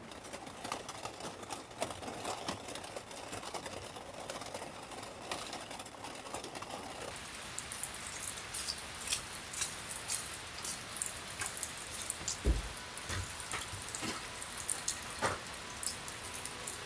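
Steady rain, duller for the first seven seconds, then with heavy drops falling in many sharp separate hits. A dull low thump about twelve seconds in.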